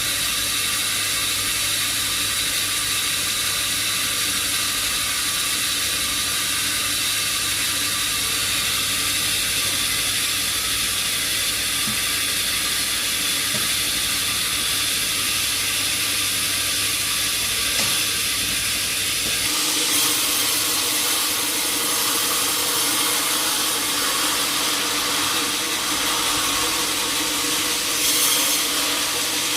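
Sawmill machinery running steadily with a hiss and several steady tones. About twenty seconds in, a low hum drops out and the sound shifts higher.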